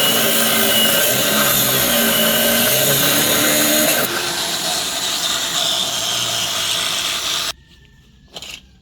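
A power tool running on metal, its motor pitch wavering under load. It drops in level about four seconds in and stops near the end, leaving a couple of light knocks.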